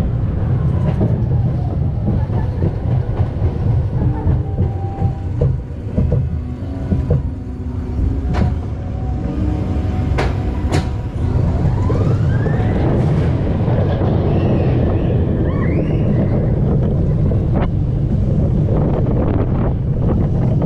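Roller coaster train running along its track, heard from on board: a steady rumble of the wheels with wind rushing over the microphone, a few sharp clacks, and a rising whine about twelve seconds in.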